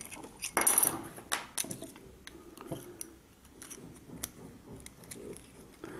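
Small bare fibreglass circuit boards clicking and tapping against each other as they are shuffled in the hands: scattered sharp clicks, with a brief rustle about half a second in.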